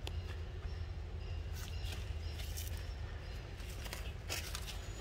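Steady low outdoor rumble with a few scattered light clicks and rustles.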